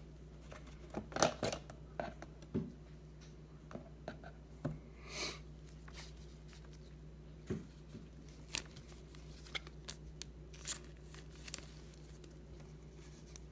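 Quiet, scattered taps and rustles of trading cards and foil card packs handled by gloved hands, with one longer scraping rustle about five seconds in.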